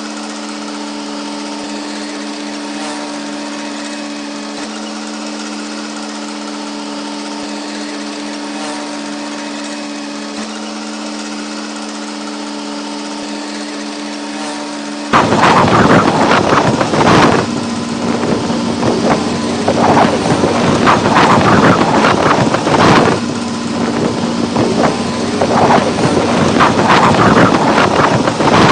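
Heavy construction machinery engine running with a steady hum; about halfway through it cuts abruptly to a much louder, rougher engine sound that surges repeatedly, with wind buffeting the microphone.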